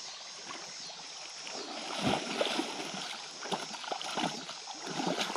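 Shallow river water rippling, then from about two seconds in a child's feet splashing through it, running quickly through shin-deep water.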